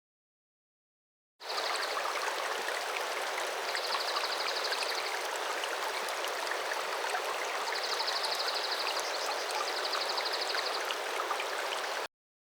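Steady rushing of a flowing stream, with a high rapid trill sounding four times over it. It begins about a second and a half in and cuts off shortly before the end.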